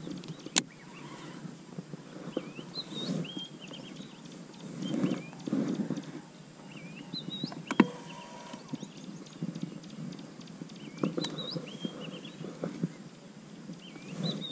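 A bird calling again and again in short chirps that bend up and down in pitch. Low muffled bumps run underneath, with two sharp knocks: one just after the start and a louder one about eight seconds in.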